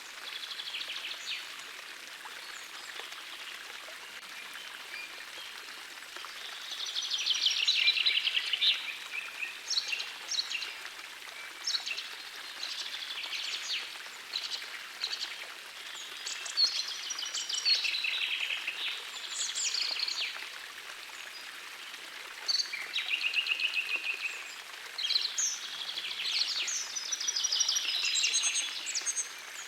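Gentle forest stream running with a steady hiss, with songbirds singing over it in repeated phrases and rapid trills; the loudest trill comes about seven to nine seconds in.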